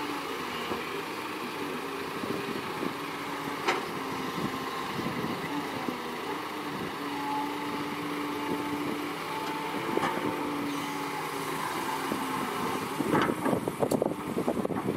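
Doosan DX225LCA crawler excavator's diesel engine and hydraulics running under load as the boom swings and dumps sand, with a steady whine that steps up and down in pitch. A couple of sharp clicks come in the middle, and a burst of rough clattering near the end.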